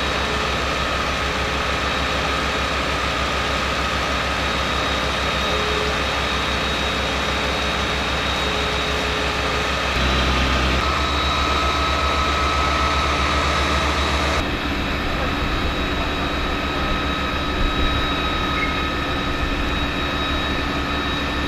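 Fire appliances' diesel engines and pumps running steadily: a continuous low mechanical drone with a thin steady whine above it. The sound changes abruptly about ten seconds in and again around fourteen seconds.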